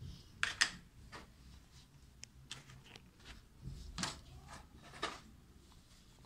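Scattered light clicks, taps and rustles of handling: plastic wrapping crinkling as a die-cast metal model plane and its plastic display stand are fitted together.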